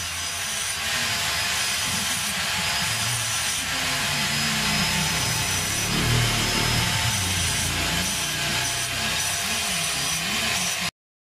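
A sheet of paper rubbing and rustling as it is handled in the hands.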